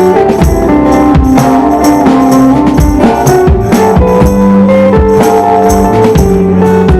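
Live band playing a song: guitars and bass holding sustained notes over a steady percussion beat.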